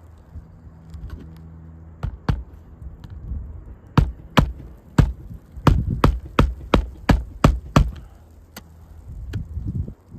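Claw hammer driving roofing nails through a new asphalt shingle, a run of sharp strikes that comes quickest in the middle, about two to three a second. A steady low hum runs underneath.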